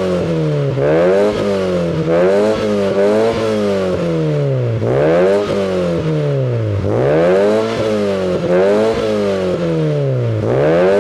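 Honda D15B 3-stage VTEC four-cylinder engine with a custom steel muffler and stainless tip, revved up and let fall again and again in quick blips, about one a second, its exhaust note rising and dropping each time.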